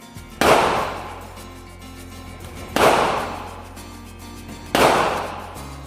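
Three gunshots about two seconds apart, each sharp with a long ringing tail, over background music.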